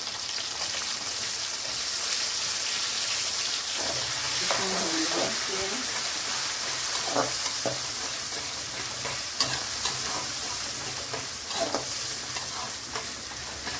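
Chopped onion sizzling in hot oil in a metal kadhai, frying towards brown. From about four seconds in, a perforated metal skimmer spoon scrapes and taps against the pan as the onion is stirred.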